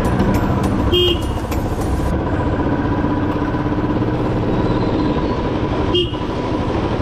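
A vehicle driving on a road, heard from on board as a steady rush of engine, road and wind noise. A horn gives two short toots, about a second in and again about six seconds in.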